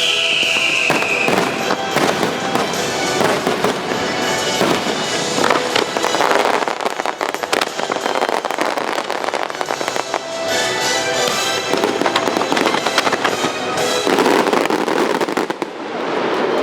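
Fireworks bursting in a rapid, dense barrage with crackling, over loud orchestral show music, with a falling whistle in the first second.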